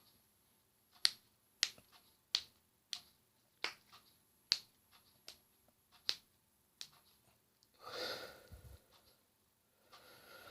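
A string of sharp joint cracks and pops, about nine of them over six seconds, as joints are cracked. They are followed by a longer breathy sound near the end.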